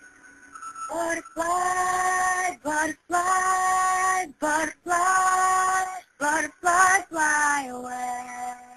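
A female voice singing long held notes from about a second in, with short breaks between them; the last note slides down and holds near the end. Recorded on a cell phone, so the quality is poor.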